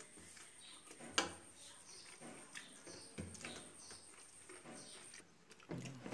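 Eating sounds: fingers mixing rice and curry on steel plates, with soft scattered clicks and chewing, and one sharp click about a second in.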